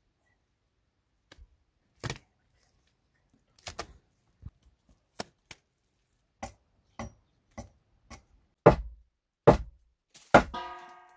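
Handfuls of wet mud slapped and pressed onto a mud-brick wall by hand: a run of separate wet slaps, roughly one every half second to a second, the last few heavier. Near the end, a knock of wooden poles with a brief creak.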